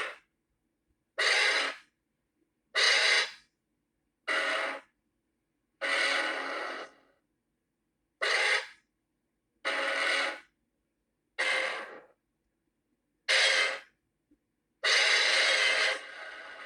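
Varan's roar, the film sound effect of the kaiju Varan, played as a string of about ten short separate calls, each under a second or so, with dead silence between them. Near the end one longer call runs on and trails off into a quieter tail.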